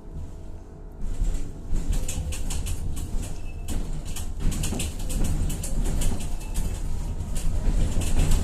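Tatra-Yug K1M tram running on the rails, heard from aboard: a steady low rumble of wheels and running gear with constant clicking and rattling from the car body. It gets markedly louder about a second in.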